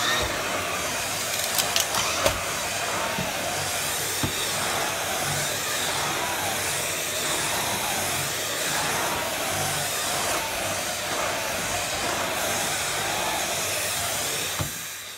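Numatic vacuum cleaner running steadily with the Airo brush floor nozzle on carpet: a constant suction hiss whose pitch wavers up and down as the nozzle is pushed back and forth. A few sharp clicks sound about two seconds in.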